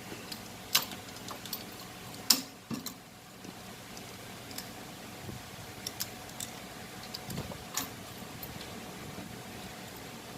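Scattered light clicks and taps of small plastic parts and wire connectors being handled while the compressor's start relay and overload protector are taken off, the sharpest about two seconds in, over a faint steady hiss.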